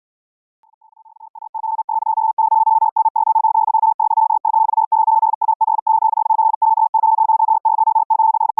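High-speed Morse code (QRQ CW): a single tone of roughly 900 Hz keyed on and off very rapidly, relayed as audio over a Mumble internet voice server. It fades in during the first two seconds, then runs loud with brief character and word gaps.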